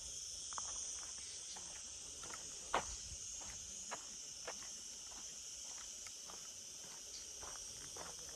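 Footsteps of a person walking on a path, about two steps a second, one sharper step about three seconds in, over a steady high-pitched insect chorus.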